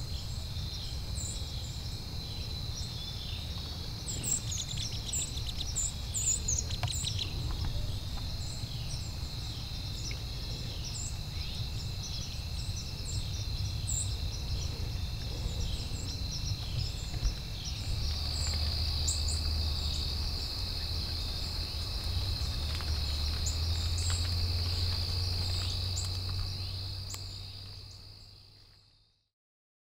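Evening field ambience: a steady high-pitched insect drone with scattered bird chirps over a low rumble. The drone and the rumble grow louder about two thirds of the way through, then everything fades out near the end.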